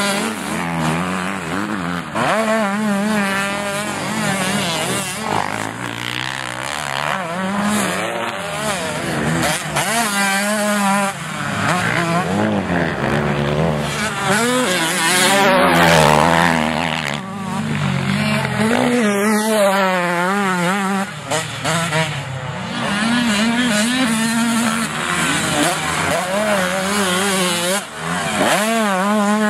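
Two-stroke motocross dirt bike engines revving hard, their pitch climbing and dropping over and over as the riders accelerate, shift and back off through the track. The loudest burst of throttle comes about halfway through.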